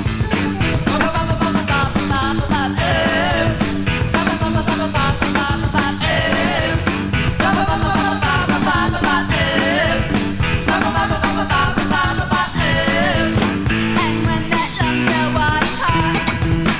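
New wave rock song from 1979 playing: a vocal melody over a repeating bass line and a steady drum beat.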